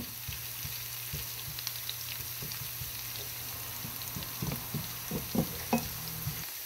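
Sliced onions and whole spices sizzling in hot mustard oil, stirred with a wooden spatula. Small clicks of the spatula run through it, with a few louder knocks against the pan near the end.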